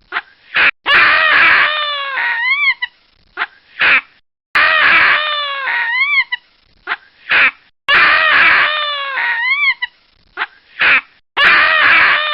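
Baboon calling: a loud scream that falls in pitch, followed by a few short rising-and-falling squeals and brief yelps. The same sequence repeats about every three and a half seconds, four times in all.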